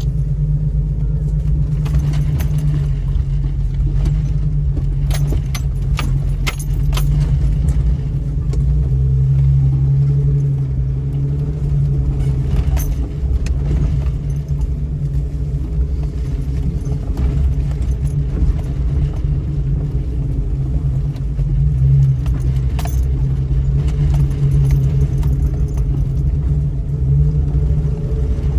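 A 2000 Jeep Cherokee running steadily as it drives down a rough 4x4 trail, with a constant low drone. Scattered rattles and clicks come over it, most of them between about two and seven seconds in, with more about halfway and near the end.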